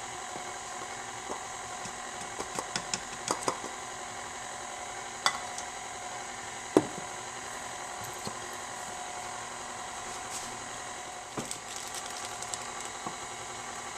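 KitchenAid Artisan stand mixer running steadily, its beater turning thick cake batter in a stainless steel bowl, with a steady motor hum and whine. Scattered sharp clicks and knocks over it, the loudest about seven seconds in.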